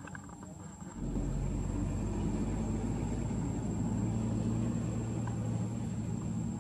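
A steady, low engine rumble that sets in about a second in and keeps running.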